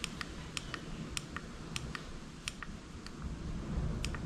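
Push buttons on a Daytona Velona electronic speedometer/tachometer clicking, pressed over and over to step the shift-light rpm setting up toward 7,500. About two sharp clicks a second, with a short pause about three seconds in.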